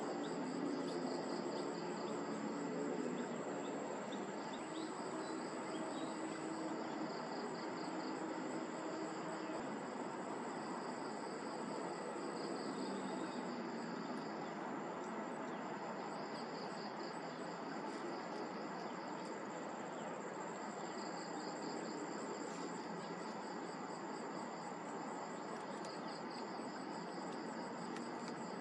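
Insects trilling in a field ambience: rapid pulsed trills that come and go, with a constant thin high-pitched whine, over a steady background noise.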